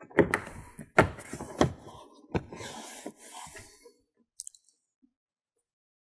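Plastic trim panel on a Rivian R1S being pushed down into its clips: four sharp snaps or knocks, roughly a second or less apart, amid plastic rubbing and scraping, which dies away after about four seconds, followed by a couple of faint clicks.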